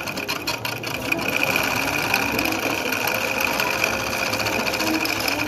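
Industrial pico (picot edging) sewing machine running steadily at speed, stitching a multicoloured picot edge.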